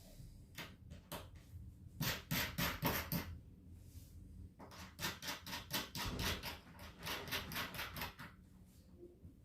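Quick metal clicks and scrapes in two runs, the first about two seconds in and a longer one from about five seconds: toilet closet bolts being worked in the slots of the closet flange.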